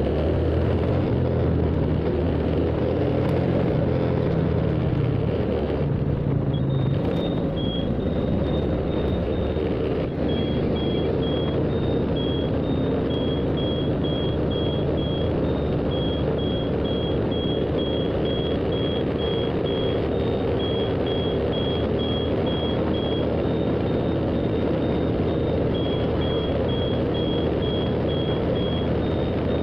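Steady engine and road noise of a vehicle on the move. From about six seconds in, a short electronic beep repeats about twice a second, stepping between two slightly different pitches.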